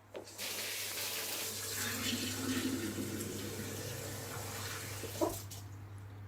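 Water pouring steadily into a cooking pot of chopped vegetables for soup, for about five seconds, with a short knock near the end.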